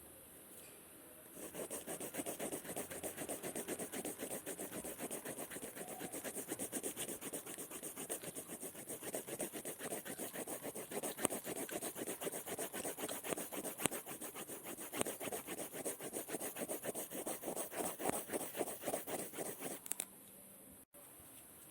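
Scribbling on paper: a writing tip scratched rapidly back and forth in quick, even strokes. It starts about a second and a half in and stops abruptly near the end.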